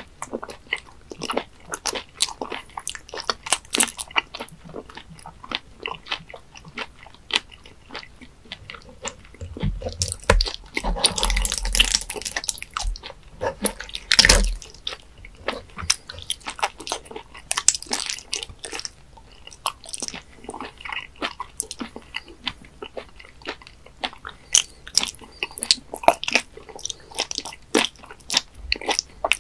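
Close-miked wet chewing of raw webfoot octopus: a steady stream of short, sharp, wet clicks and smacks from the mouth. About a third of the way in comes a denser, louder stretch of squelching lasting four seconds or so.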